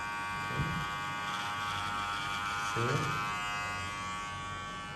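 Cordless electric hair clipper running with a steady buzz while cutting hair clipper-over-comb.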